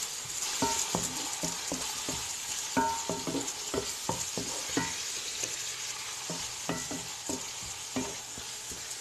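Garlic, onion, soy sauce and vinegar sizzling in hot oil in a pan while being stirred. A utensil knocks and scrapes against the pan in irregular clicks over the steady sizzle.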